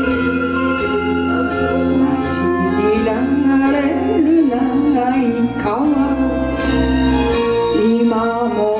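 Karaoke backing track of a Japanese kayō ballad, with sustained instrumental lines. A woman's solo singing voice comes in over it a few seconds in.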